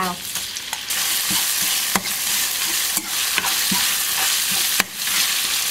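Ground pork sizzling in hot oil and garlic in a nonstick wok, the sizzle growing louder about a second in as the meat spreads into the oil. A metal spatula stirs it, clicking against the pan a few times.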